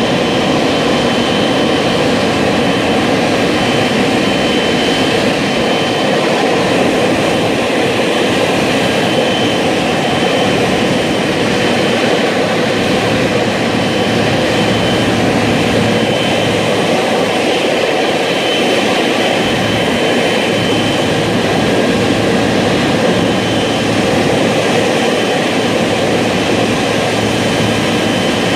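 Boeing 777-300ER's twin GE90 turbofan engines at low taxi power as the airliner taxis slowly in toward the gate: a steady, loud jet noise with a thin high whine that comes and goes.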